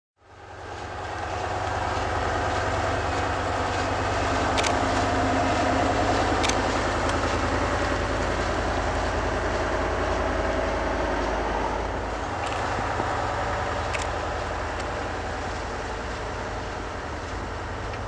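Tatra dump truck's diesel engine running steadily, fading in over the first second or so, with a few short sharp clicks over the top.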